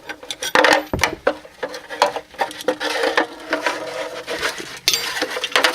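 A car's plastic interior trim piece being worked free by hand: repeated knocks, clicks and rubbing as it is turned sideways and slid through a hole, with sharper knocks about a second in and near the end.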